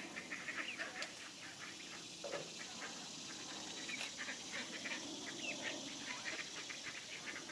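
Ducklings peeping: a quick string of short, high chirps.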